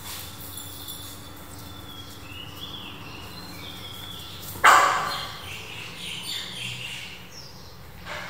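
Puppy whining in a high, wavering pitch, then one loud, sharp bark about halfway through, trailing into softer whimpers.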